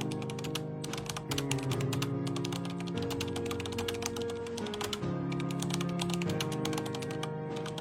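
Background music of held chords that change every second or two, under a dense rapid clicking like keyboard typing.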